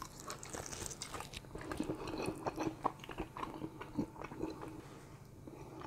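A person biting into and chewing a smoked chicken wing drumette: irregular small crunches and wet mouth clicks.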